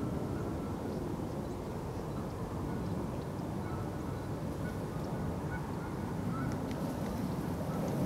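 Steady low outdoor rumble with a few faint, short distant bird calls now and then.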